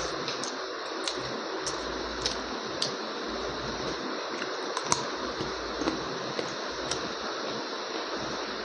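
A person eating egg curry and rice: small wet clicks and smacks that come irregularly every half second or so, over a steady background hiss.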